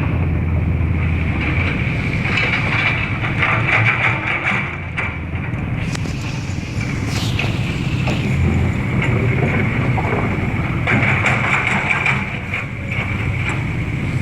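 A large engine running steadily, with a steady high whine over a low hum.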